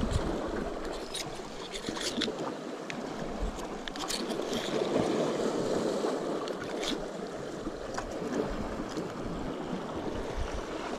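Sea waves washing steadily against a rocky shore, swelling and easing, with a few short clicks from mussel shells and a small cutting tool being handled.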